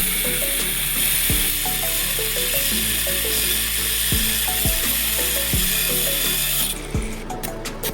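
Background music with a steady beat, over a steady high hissing noise that cuts off suddenly near the end.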